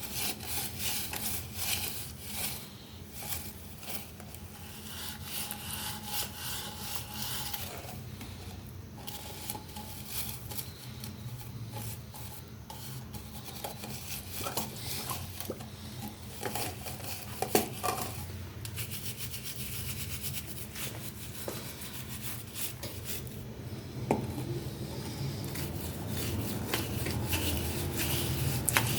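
Continuous scraping and rubbing on a hard object, like abrasive cleaning of a dirty surface, with a steady low hum underneath and one sharp click about two-thirds of the way through.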